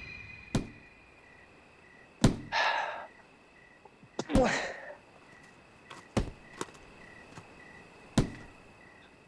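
A series of about six sharp thuds at uneven intervals, two of them followed by a brief hissing swish.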